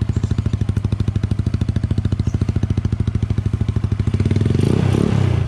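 Yamaha Mio Sporty scooter's single-cylinder engine idling with an even putter through an aftermarket JVT exhaust pipe, then revved up near the end. It runs an open carburettor, which adds to its loud exhaust note.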